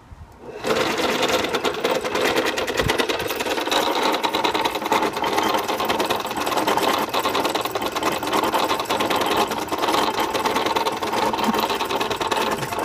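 Home-built 1951 electric jigsaw (scroll saw) starting up about half a second in, then running steadily with a rapid, even clatter from its reciprocating blade mechanism.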